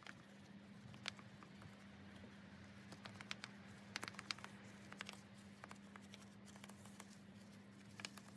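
Wash mitt scrubbing a snow-foamed alloy wheel: faint scattered wet clicks and squelches, a few in quick clusters, over a low steady hum.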